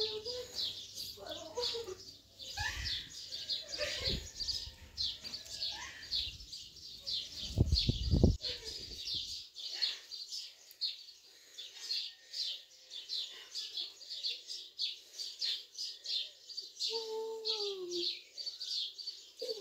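A bird chirping over and over, a few short high chirps a second, throughout. A few low rumbles come in the first half, the loudest about eight seconds in.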